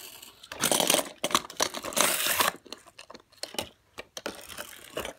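Small toy cars rolling and clattering on a plastic toy garage playset. Two short scraping rolls come about half a second and two seconds in, followed by scattered light clicks and taps.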